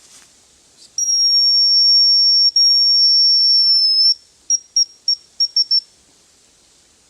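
Male hazel grouse song whistled: one long, thin, very high note held steady for about three seconds, then a quick run of about seven short high pips.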